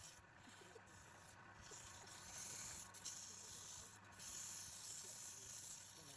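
Hand sanding: a faint, hissing scrub in uneven strokes about a second long, with short breaks between them.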